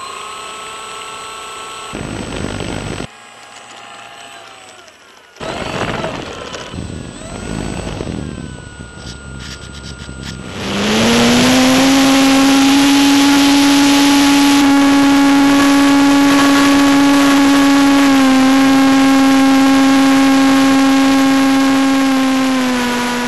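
T-28 RC model plane's motor and propeller, heard from a camera mounted on the plane. After some shorter mixed sounds, the motor spools up about ten seconds in with a quick rise in pitch for takeoff, then holds a loud, steady, high hum that dips slightly in pitch twice.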